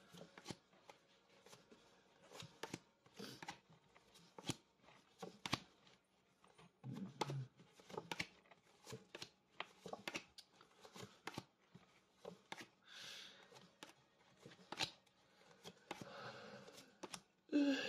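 Angel oracle cards being shuffled by hand, a quiet run of irregular clicks and flicks of the card edges.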